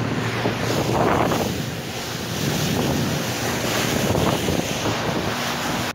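Small boat underway: wind buffeting the microphone over rushing water, with a low, steady engine hum beneath.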